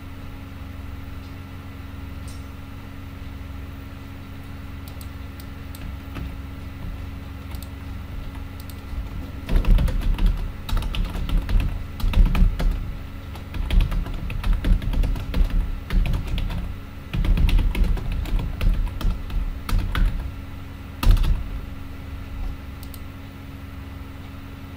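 Typing on a computer keyboard in quick irregular runs of keystrokes, starting about ten seconds in and stopping a little after twenty seconds with one harder keystroke, over a steady low hum.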